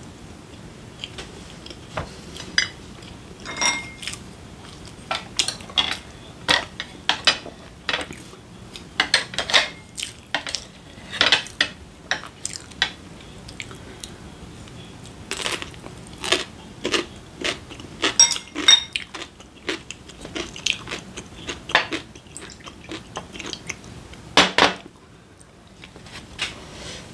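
Chopsticks clicking and clinking against ceramic plates and a bowl in irregular sharp taps, a few ringing briefly.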